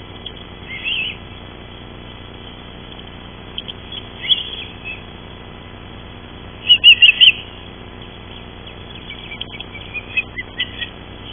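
Ospreys calling at the nest with short, high chirps. The loudest is a quick run of about four chirps midway through, with softer single calls scattered before and after.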